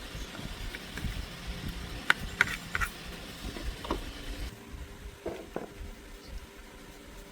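Small motorbike engine idling unevenly, with a few sharp metallic clinks about two to three seconds in. Halfway through, the engine sound drops away abruptly, leaving a faint steady hum.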